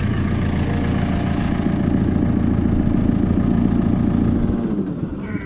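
JCB 541-70 telehandler's diesel engine running steadily at idle, close to the microphone. About four and a half seconds in it starts to drop in level and fade away.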